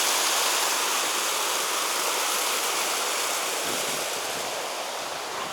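Waterfall rushing: a steady, even hiss of falling water that slowly gets quieter.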